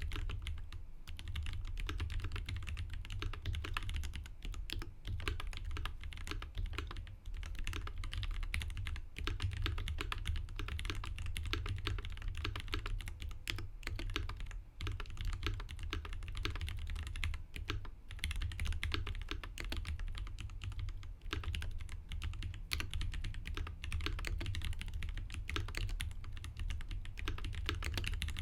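Continuous typing on a prototype Mesa TKL mechanical keyboard fitted with Durock T1 tactile switches lubed with Tribosys 3204 and GMK Cyan keycaps. The keystrokes come in a fast, unbroken run of clicks.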